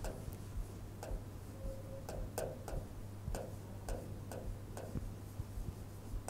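Chalk writing on a chalkboard: a quick string of short taps and scrapes, about three a second, as each letter is stroked out.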